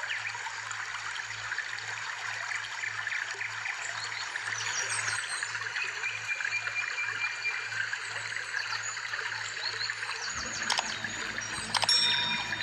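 Steady trickling, stream-like water sound with many small chirps and ticks running through it. Near the end comes a short, sharp ringing click.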